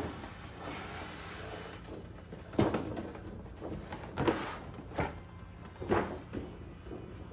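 A cardboard box sleeve scrapes as it slides off a plastic packaging tray, then the plastic tray knocks four times as it is handled and set down.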